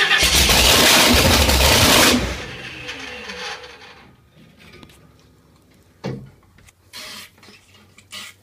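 Supercharged 540-cubic-inch V8 drag-boat engine running loud for about two seconds, then shut off, dying away with a falling tone as it spins down. A few short knocks and clatters follow.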